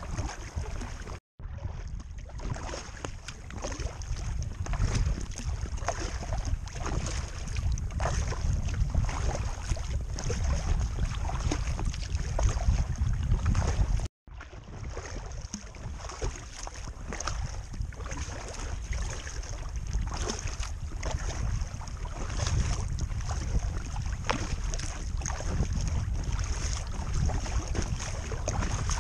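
Wind rumbling on the microphone over the splash and drip of paddle strokes and water lapping at an inflatable Intex Challenger K1 kayak. The sound cuts out to silence twice, briefly: about a second in and about fourteen seconds in.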